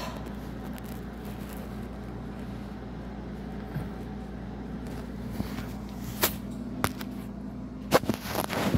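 A steady low mechanical hum from a motor or appliance. A few sharp clicks and knocks come in the second half, bunched near the end, as the phone is handled.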